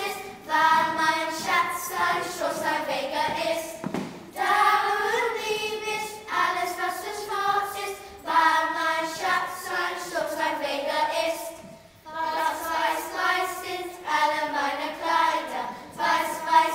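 Children's choir singing a song together in unison, phrase by phrase, with brief pauses between lines about four seconds in and again near twelve seconds.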